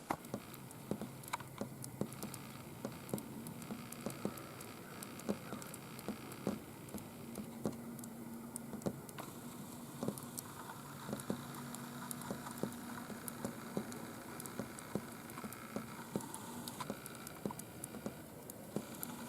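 Irregular light pattering ticks of falling snow striking the hunting blind, over a faint hiss, with a low hum that comes and goes.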